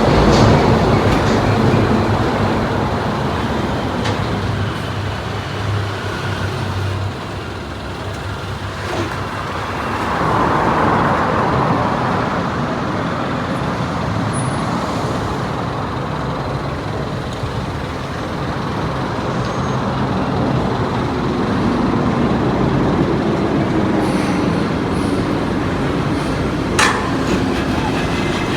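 Road traffic with heavy trucks and buses running and passing: a low engine hum in the first several seconds, a vehicle swelling past about ten seconds in, and another engine drone later on.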